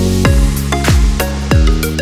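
Electronic background music with sustained synth notes over a steady, deep kick-drum beat.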